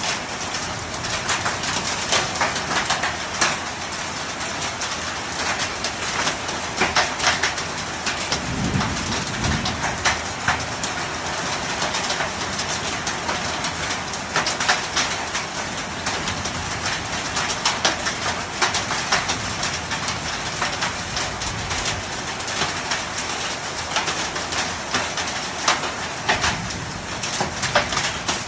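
Hail falling with rain: a dense, steady patter of countless small stones striking. A brief low sound about nine seconds in.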